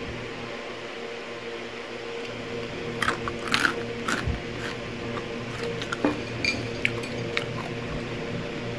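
Crunchy fried corn kernels (Super Bawang corn snack) being bitten and chewed: irregular crackly crunches starting about three seconds in, over a steady low hum.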